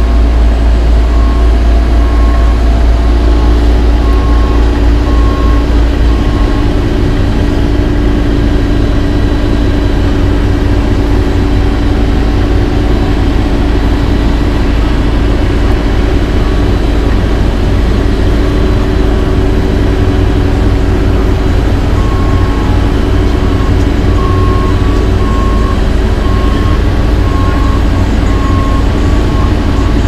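Heavy diesel paving equipment and trucks running steadily, with a backup alarm beeping in an even series early on and again from about two-thirds of the way through. A deep rumble, heaviest in the first six seconds, runs underneath.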